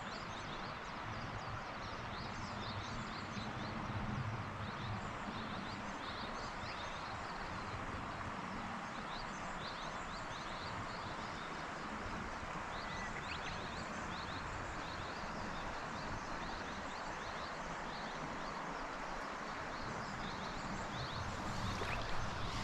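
Steady rush of flowing river water, with many quick, high chirps scattered through it.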